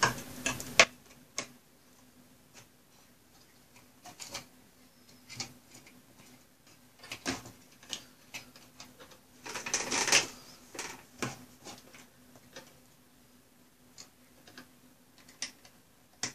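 Scattered clicks, taps and rattles of hands fitting and seating parts inside an HP ProLiant Gen8 MicroServer's sheet-metal chassis, with a busier run of scraping clicks about ten seconds in. A faint steady hum runs underneath.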